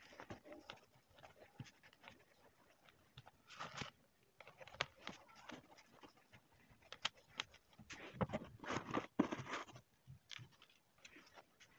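Sawdust being pressed and packed down by hand into a tin can around an upright pole: irregular scratchy rustling and scraping, with louder stretches about four seconds in and again in the last few seconds.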